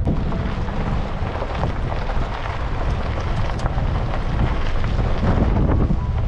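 Wind noise on the microphone over the steady rumble of a Nissan Titan pickup driving along a dirt road, with a few small ticks scattered through it.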